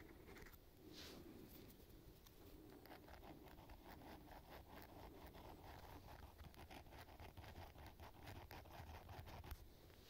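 Faint metal sharpener scraping across a fishing lure's hook in quick back-and-forth strokes, several a second. The strokes start about three seconds in and stop just before the end.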